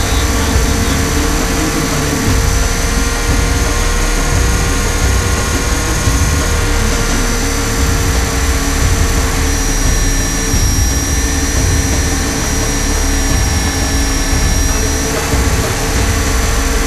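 Align T-REX 500 electric RC helicopter in flight, heard from its onboard camera inside the scale fuselage: a steady high whine from the electric motor and drive gears over a heavy low rotor and wind rumble. The whine dips slightly in pitch about two-thirds of the way through, then comes back.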